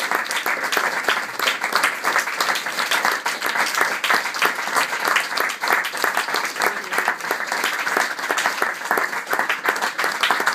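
Audience applauding: dense, steady clapping from many hands throughout.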